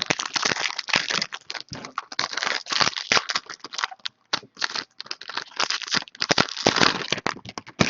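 Trading cards and their packaging being handled and shuffled: a dense, irregular run of crinkling and crackling.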